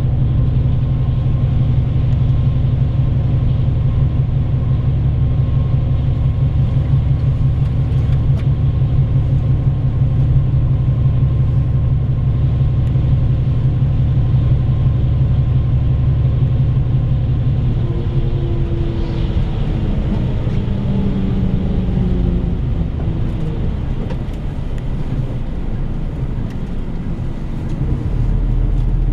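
Diesel bus engine and road noise heard from inside the passenger cabin, a steady drone that falls in pitch and eases off about two-thirds of the way through as the bus slows, with a deeper rumble coming back near the end.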